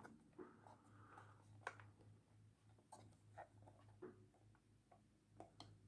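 Near silence, broken by a few faint, sparse clicks and taps of wooden puzzle-box pieces being handled and tried for movement.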